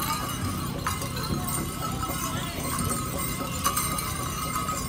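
Powwow drum group drumming and singing a chicken dance song, with the dancer's sleigh bells jingling as he steps.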